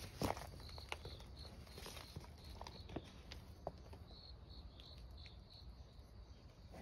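Faint outdoor ambience of an insect chirping in short, evenly repeated high pulses, strongest in the second half, with a few faint scattered ticks and scuffs.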